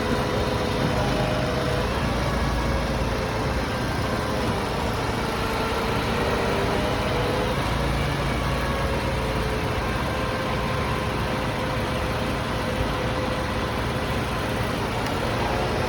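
A large machine engine running steadily, its pitch drifting up and down a little.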